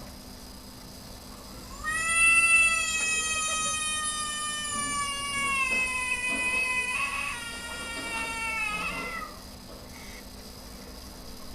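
A cat's single long, drawn-out meow lasting about seven seconds, its pitch sagging slowly and lifting briefly just before it stops.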